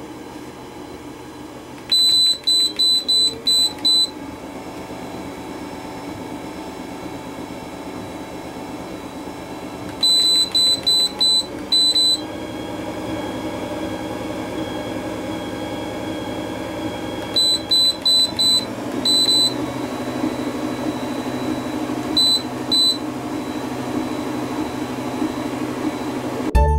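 MettleMatic TW1 walking pad running unloaded, its motor and belt humming and stepping up in pitch as the speed is raised. Loud, high electronic beeps come as the speed is stepped up, in quick runs of about half a dozen beeps about two, ten and eighteen seconds in, and two more near the end.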